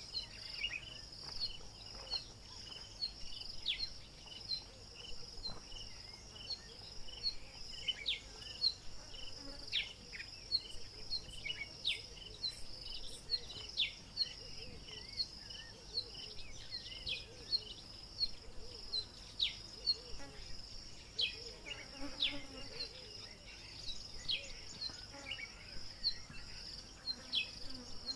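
Bush ambience: a steady, high-pitched insect drone like a cricket chorus, with many short, downward-sliding chirps repeating irregularly over it.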